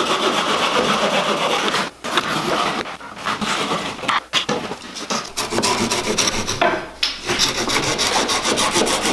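Hand folding saw cutting off the ends of willow branches on a chair frame, in quick back-and-forth strokes. It stops briefly three times.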